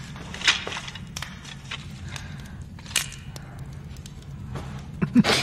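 Soft footsteps and rustling of clothing, a few scattered scuffs with a louder one near the end, over a steady low hum.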